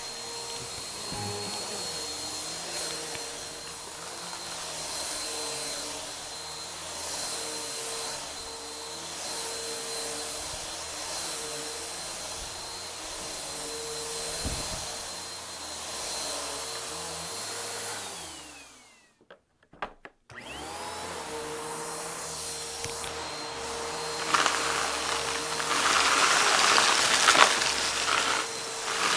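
Vacuum cleaner running, a steady hum with a pulsing tone. About two-thirds of the way through it winds down to silence and spins back up a couple of seconds later. Near the end loud crackling and crunching comes in as it sucks up a crunchy mess-test mix.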